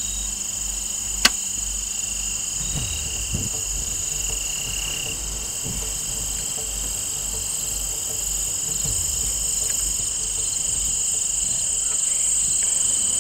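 A steady, high insect chorus trills throughout; about a second in comes a single sharp crack as a bow is shot at a deer.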